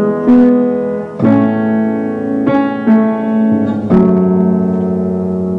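Slow piano music: a handful of sustained chords, each struck and left to ring.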